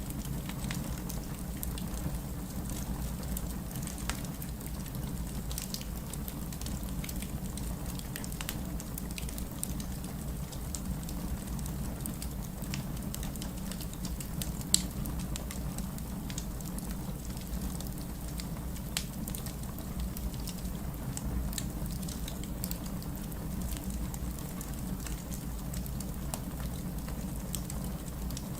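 Fireplace ambience: a wood fire crackling with scattered sharp snaps over a steady low rumble, with one louder pop about halfway through.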